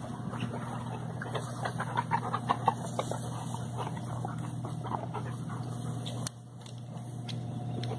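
Labrador retrievers sniffing and snuffling at the ground: rapid runs of short sniffs, busiest in the first three seconds, over a steady low hum.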